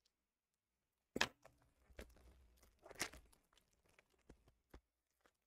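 Clear plastic wrapping on a taped-up book crinkling and tearing as it is pulled open, loudest about a second in and again about three seconds in, then a few light clicks.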